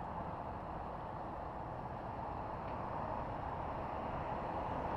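Steady rushing noise of wind over a bicycle-mounted camera while riding, mixed with road traffic, growing a little louder over the last couple of seconds.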